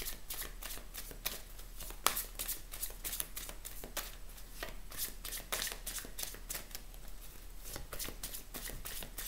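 Hands shuffling a deck of oracle cards: a continuous run of soft card flicks and riffles, several a second.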